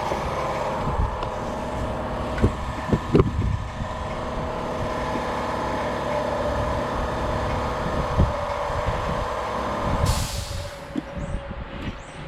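An engine runs steadily, with a few knocks over it. About ten seconds in comes a short burst of hiss, and the engine sound then drops away.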